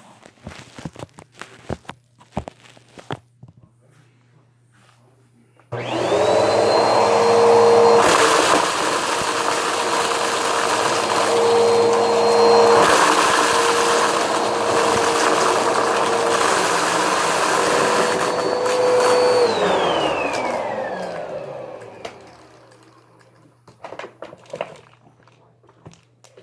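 Vacuum cleaner switched on about six seconds in, running steadily with a high motor whine, then switched off, its motor winding down with a falling whine. A few clicks and handling knocks come before it starts and after it stops.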